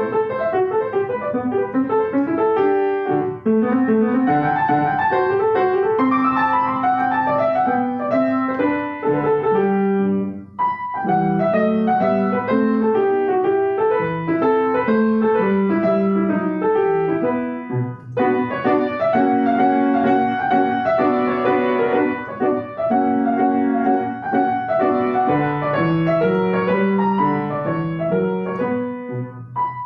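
Solo piano playing a classical piece in quick running notes, with brief breaks between phrases about ten and eighteen seconds in.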